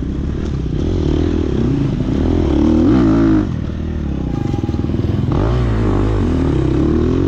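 Off-road dirt bike engine revving up and down through tight corners, heard close from on board the bike. It eases off about three and a half seconds in and picks up again about two seconds later.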